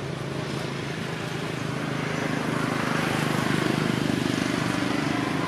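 A motor vehicle's engine running with a steady low hum, growing louder about halfway through and then easing slightly.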